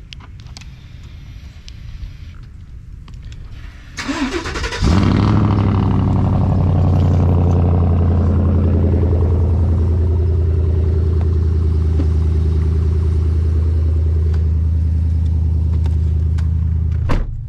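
Chevy Silverado pickup cold start: the starter cranks briefly about four seconds in, then the engine catches and runs loud and steady at idle. A sharp click comes near the end.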